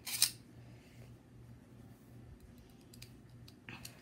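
Plastic Beyblade top being fitted onto its plastic launcher by hand. There is one short loud scrape near the start, then a few faint plastic clicks.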